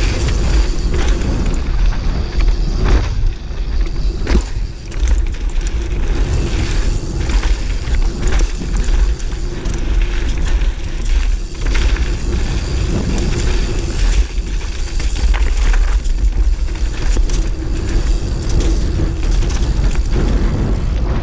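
Giant Reign full-suspension mountain bike descending a rocky dirt trail: wind buffeting the bike-mounted camera's microphone, and tyres rolling over gravel and rocks. Frequent knocks and rattles of the bike throughout.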